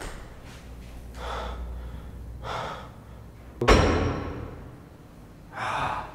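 A door slams shut once, about two-thirds of the way in, a loud sudden thud that rings on briefly in the empty room. Heavy, gasping breaths come before and after it.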